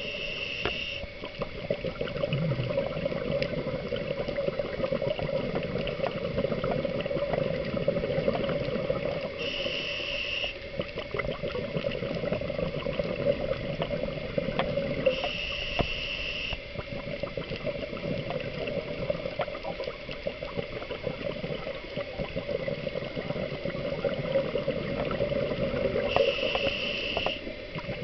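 A scuba diver breathing through a regulator, heard underwater: four short hissing inhalations, each about a second long, spaced several seconds apart. Between them runs a steady bubbling water noise scattered with fine crackling clicks.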